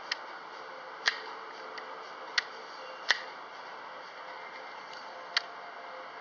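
Sharp metallic clicks from a Seahawk Strike Wolf II spinning reel being handled with its spool off, as its rotor and bail are turned and moved: five single clicks at uneven intervals over a steady hiss.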